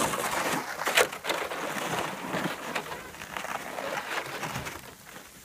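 Crackly scraping and crunching on ice-crusted snow, with a sharp click about a second in, fading away near the end.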